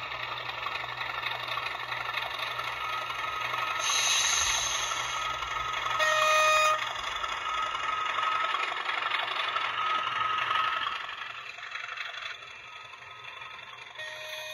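Class 37 diesel locomotive engine sound from a 00 gauge model loco, running steadily as the loco passes. There is a brief hiss about four seconds in and a short single horn blast about six seconds in. The engine sound drops away after about eleven seconds.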